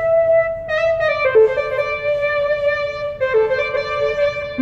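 Yamaha MODX6+ synthesizer playing a lead patch. A held note gives way, about a second in, to a slow melody of sustained notes, mostly two sounding together.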